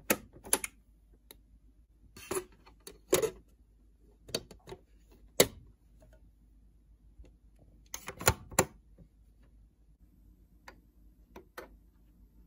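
Irregular sharp clicks and taps, about a dozen spread over several seconds with pauses between them, the sharpest about five seconds in, over a faint low hum.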